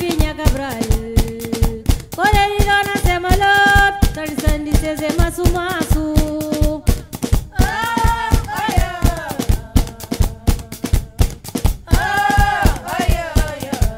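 Batuku: tchabeta cloth bundles beaten in a fast, steady rhythm, with women's voices singing phrases over it. The singing drops out for about two seconds around ten seconds in while the beating keeps going.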